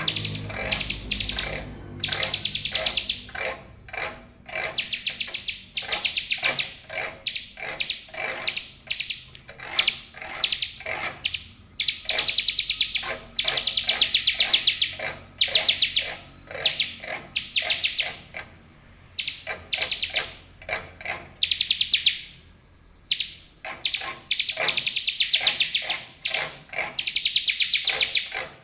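Bar-winged prinia (ciblek) singing: rapid, chattering trills repeated in phrases of one to two seconds with short gaps, and one longer pause a little past the middle.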